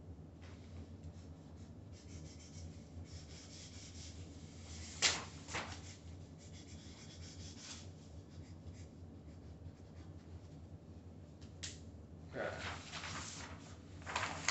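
Large sheets of drawing paper being handled and turned in a portfolio case, the paper rubbing and rustling, with one sudden louder rustle about five seconds in and a busier stretch of shuffling near the end.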